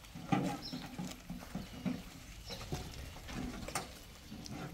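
Animal sounds, likely livestock: short calls among scattered knocks and clicks.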